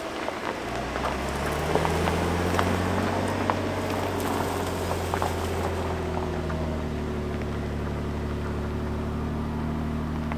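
Toyota Tundra pickup's engine picking up about half a second in, rising a little, then pulling with a steady low drone. Tyres crackle over dirt and stones for the first few seconds.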